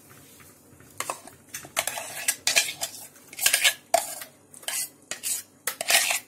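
Irregular metal scraping and clinking as coarsely ground idli batter is scraped out of a mixer-grinder jar into a steel pot, starting about a second in.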